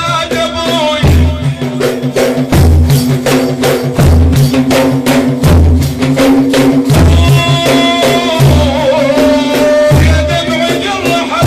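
Sufi dhikr: chanting voices over a steady held drone, with a deep frame-drum stroke about every second and a half and rapid jingling drum strokes in between.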